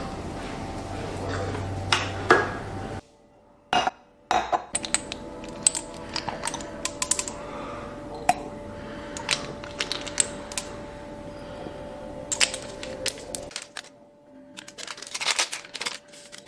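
Many quick, light clicks and clinks of small hard objects being handled, over a faint steady hum.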